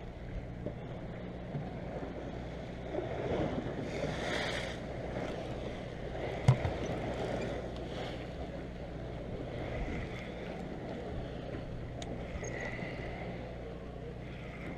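Steady low drone of a deep-sea party boat's engine under wind and water noise, with a brief rush of noise about four seconds in and a single sharp click about six and a half seconds in.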